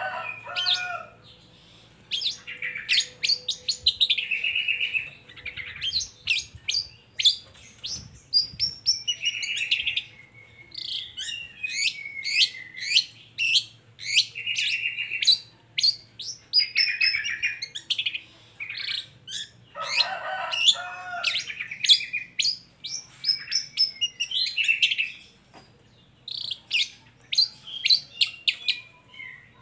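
Long-tailed shrike (cendet) singing a rapid, varied song: quick runs of sharp high chips alternating with short buzzy trills, with a few harsher, lower calls at the start and about twenty seconds in.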